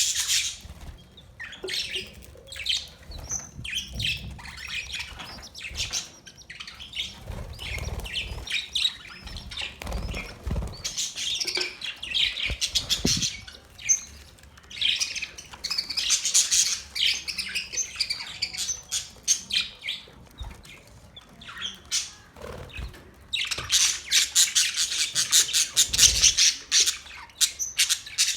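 Budgerigars chattering, with rapid, scratchy warbling chirps that come in spells and are busiest near the end.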